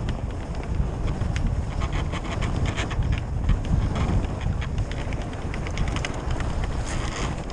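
Wind buffeting the helmet camera's microphone as a fat-tyre bike rolls down a packed-snow trail, with a steady low rumble and scattered crunches and rattles from the tyres and bike.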